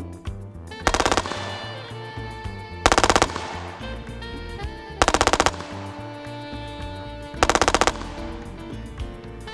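FN P90 firing four short full-auto bursts of rapid 5.7×28mm shots, about two seconds apart, over background music.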